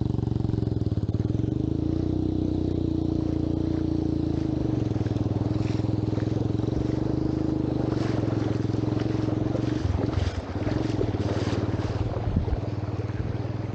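Motorcycle engine running steadily at low revs, its note dropping slightly about four seconds in. Bursts of rushing noise come and go in the second half.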